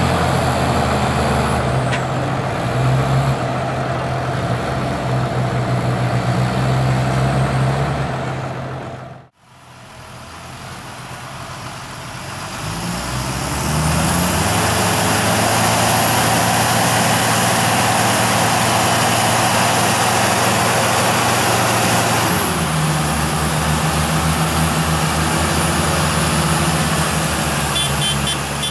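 Deutz-Fahr Agrotron tractor diesel engines running. After a sudden cut about nine seconds in, the engines build up and run hard and steady under heavy load while towing a tractor and slurry tanker rig that is stuck in mud. The engine note drops to a lower, lighter run about 22 seconds in.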